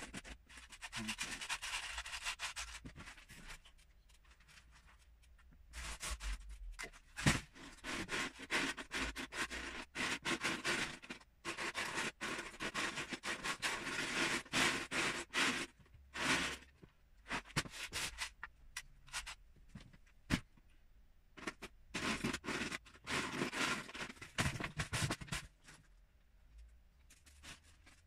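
Loose plastic LEGO bricks clattering and rattling as a hand rakes through them in a plastic storage tub. The clatter comes in several bursts of a few seconds each, with short quieter pauses between.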